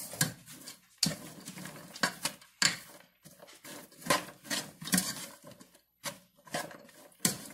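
A spoon stirring chopped leeks and carrots in a pot as they sauté in butter: irregular scrapes and knocks against the pot, sometimes several in quick succession.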